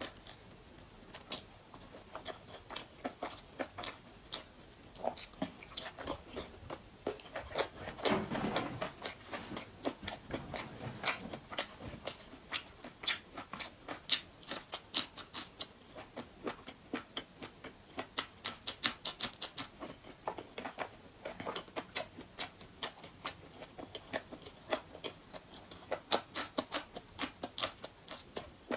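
Close-miked wet chewing of a person eating oily mutton fat curry and rice by hand, with many small sharp mouth clicks. A louder, noisier stretch comes about eight seconds in.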